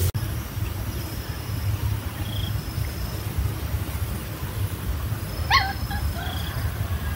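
A cat gives a short, high cry about five and a half seconds in while a dog pins and mouths it in rough play. A steady low rumble runs underneath.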